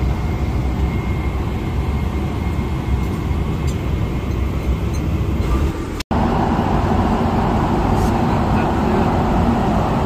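Steady airliner cabin noise in flight: the low, even noise of the jet engines and airflow. It cuts out for an instant about six seconds in.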